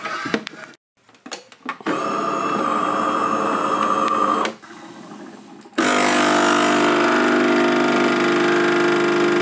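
A small electric motor runs in two spells: a few knocks, then about two and a half seconds of steady whirring, a short lull, and then a longer steady run at a lower pitch.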